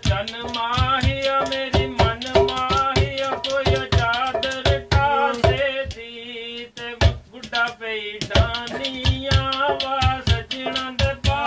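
A man singing a Punjabi song to hand drumming on upturned metal cooking pots, an even, quick beat. The voice drops away briefly near the middle while the drumming carries on.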